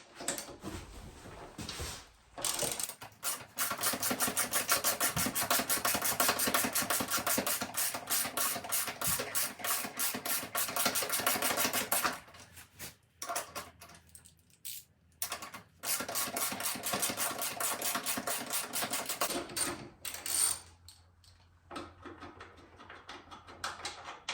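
Ratchet wrench clicking rapidly and evenly while a footpeg mounting bolt is turned, in two long runs with a pause between them and light handling sounds around them.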